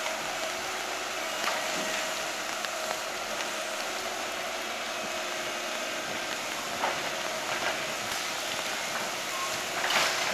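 Caterpillar 312B hydraulic excavator's diesel engine running steadily, with a few sharp knocks of demolition debris, the loudest near the end.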